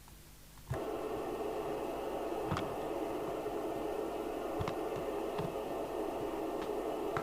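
Maxcom Apollo 16E FM CB radio hissing from its extension speaker: steady receiver static that comes on abruptly under a second in, with a few faint clicks.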